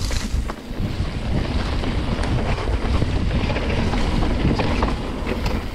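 Wind buffeting the microphone as a mountain bike descends fast on a dirt trail, with scattered clicks and rattles from the bike and its tyres over the ground.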